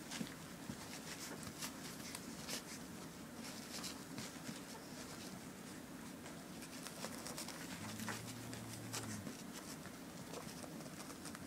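A litter of young puppies suckling at their mother: soft, irregular smacking and clicking sounds over a low room hum.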